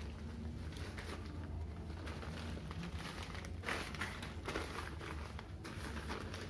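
Rustling and handling noise from the keyboard's delivery packaging being handled, in several short bursts around the middle and near the end, over a low steady hum.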